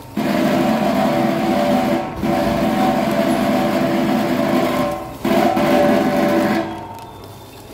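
Tobacco pouch packing machine running with a steady humming whine that breaks off briefly about two and five seconds in, then drops away near the end.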